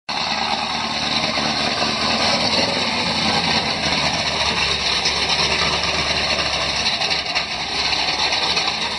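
Stroked LT1 small-block V8 of a fourth-generation Chevrolet Camaro running steadily and loudly.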